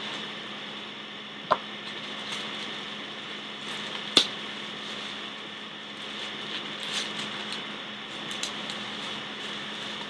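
A plastic mailer package being cut and opened by hand: two sharp snaps, about a second and a half and about four seconds in, then lighter crackling and handling, over a steady hiss and low electrical hum.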